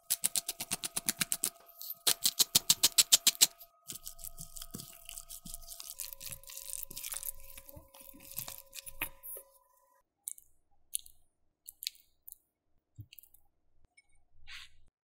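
A pepper grinder twisted in two runs of rapid, even clicks, about eight a second. Then a wooden spatula stirs thick guacamole in a stainless steel bowl, a soft mashing scrape with light knocks, and a few scattered soft taps near the end.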